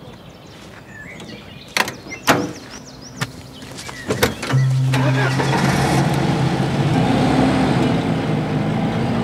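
Several sharp clicks and knocks, then about halfway through a car engine comes in and runs steadily with a low, even hum.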